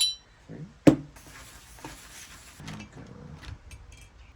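Small metal turbocharger parts being handled on a workbench: a ringing metallic clink at the start, a sharp knock about a second in, then a short hiss and a few light clicks.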